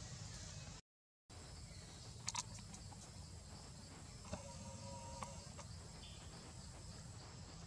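Faint forest ambience with a steady high insect drone over a low rumble. A couple of sharp clicks come a little over two seconds in, and a short animal call lasting about a second comes around the middle. The sound cuts out completely for half a second about a second in.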